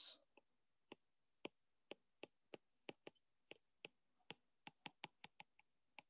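Near silence broken by faint, irregular clicks, about three a second, from a stylus tapping on a pen tablet as handwriting is written.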